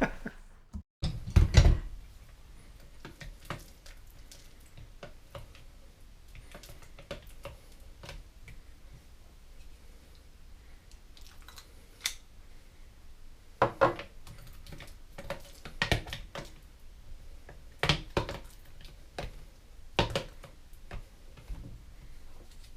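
Utensil and dishware knocking and clicking: a scattered series of sharp knocks, the loudest about a second in, as thick frozen berry sorbet is scooped out of the blender cup.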